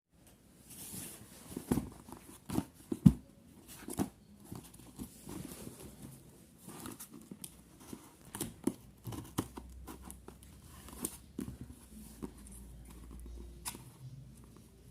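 Packaging of a small toy car being handled and opened: rustling and tearing with irregular taps and clicks, and a few sharper knocks in the first few seconds.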